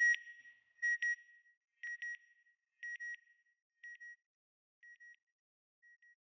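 A double electronic beep, like a satellite signal, repeated about once a second and fading away over six or seven repeats.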